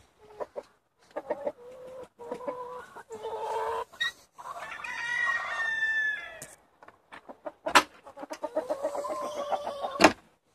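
Chickens clucking and cackling in a coop, with a rooster crowing about halfway through and a fast run of clucks later on. Two sharp knocks, one about three-quarters of the way in and one near the end, are the loudest sounds.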